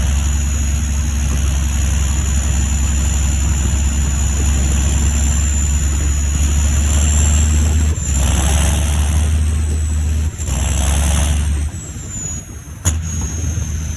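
John Deere 7530 Premium tractor's six-cylinder turbo diesel running under way, a low engine drone with a high turbo whistle over it that slowly wavers in pitch. The engine note breaks off briefly twice past the middle and eases off near the end, where there is one sharp click.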